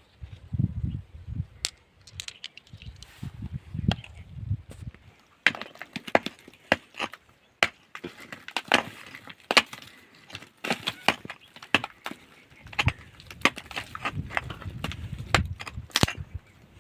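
Rock being struck and broken: many sharp, irregular knocks and cracks, coming thick and fast from about five seconds in, with duller thumps at first.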